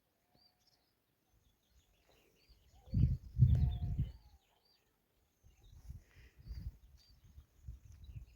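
A small bird chirping over and over, a short high call every half second or so. Low rumbling bursts come in from about three seconds in, loudest at around three to four seconds.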